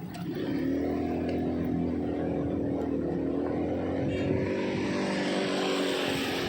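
Subway train running, its motors giving a steady whine, with rushing running noise building up over the last couple of seconds; the sound cuts off abruptly at the end.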